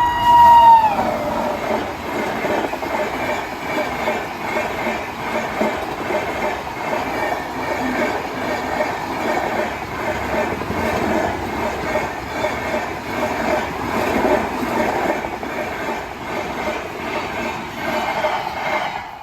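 A fast train passing: its horn, sounding one steady note, drops in pitch as the locomotive goes by about a second in. Then the cars rush past with a regular, rhythmic wheel clatter, which fades near the end.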